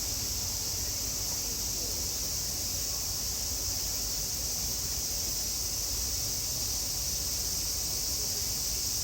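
Steady chorus of summer cicadas, a constant high hiss that does not change, over a low steady rumble.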